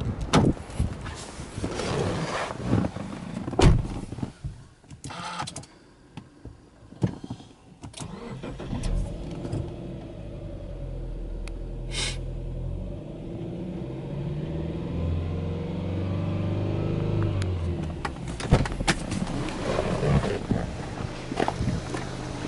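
Subaru Legacy 2.5GT's turbocharged flat-four (boxer) engine starting about nine seconds in and idling steadily near 1,000 rpm, its pitch easing down a little as it settles. Before it, door and handling knocks with one sharp knock; near the end, more knocks and clatter.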